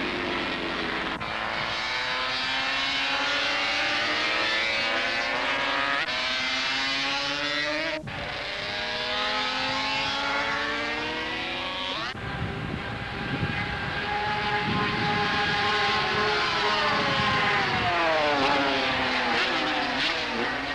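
Racing motorcycle engines at high revs as the bikes accelerate and pass, the pitch climbing as they wind up through the gears and falling away near the end. The sound breaks off and changes abruptly a few times.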